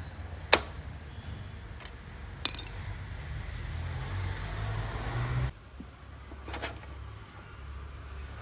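A few sharp metallic clinks over a low steady rumble, the loudest about half a second in; the rumble drops off abruptly about five and a half seconds in.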